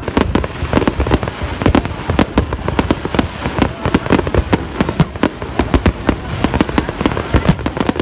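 Aerial fireworks shells bursting in a large display: a dense, irregular run of sharp bangs and pops, several a second, overlapping one another.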